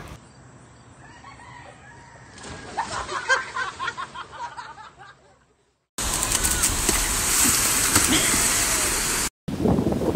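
A few short, high-pitched cries over faint water noise, then, after a cut, loud wind buffeting the microphone over surf breaking on a beach.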